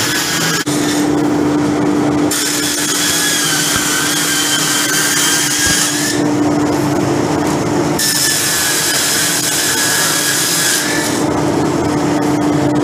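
Belt-driven roller machine running with a steady hum while wood veneer sheets are fed through it. Twice, each time for three to four seconds, a rasping hiss with a faint whine rises over the hum.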